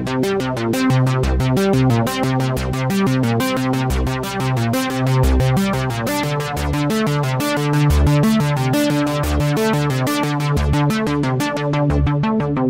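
Synapse Audio Obsession software synthesizer, an Oberheim OB-Xa emulation, playing a rapid run of short, evenly paced sequenced notes over a bass line that changes note.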